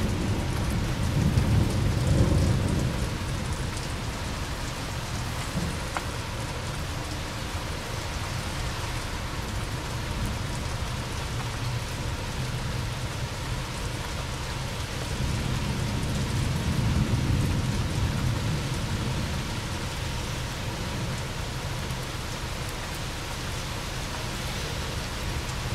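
Steady rain hiss with rolling thunder rumbling low, loudest about two seconds in and again past the middle.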